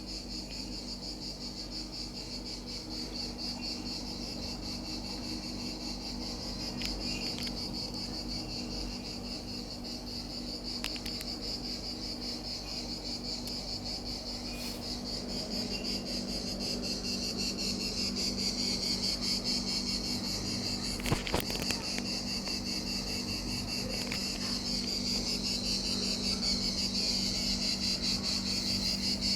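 Insects chirping in a dense, steady, finely pulsing chorus, with a low steady hum underneath and a single brief click about two-thirds of the way through.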